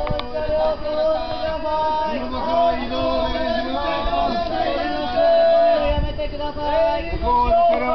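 Several loud voices at once, chanting in long held notes that overlap one another.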